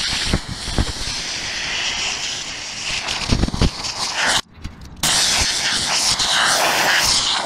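Compressed air hissing from an air-compressor blow gun, blowing water off a freshly polished motorcycle wheel to dry it. Two long blasts, with a short break about four and a half seconds in.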